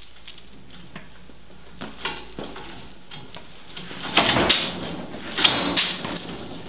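Steel chain clanking and rattling against a rear axle housing tube as it is yanked hard to pull out a stuck bearing race. The loudest yanks come about four and about five and a half seconds in.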